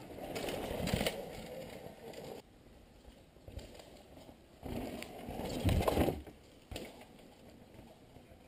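Downhill mountain bikes passing on a dirt trail, tyres crunching and scraping over the soil with the bike rattling, in two separate passes; the first breaks off abruptly.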